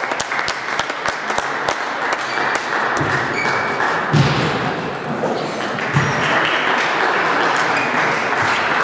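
Table tennis balls clicking off bats and tables, with play at several tables going on at once over a steady background din, and a few low thumps about three, four and six seconds in.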